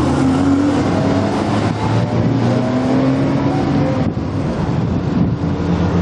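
A line of Porsche sports cars driving past one after another. Their engines accelerate, with the engine note rising in pitch several times.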